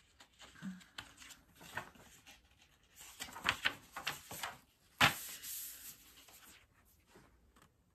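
Paper pages of a Little Golden Book picture book being handled and turned: a run of rustling and rubbing with small clicks, and one louder sharp rustle about five seconds in that dies away over about a second.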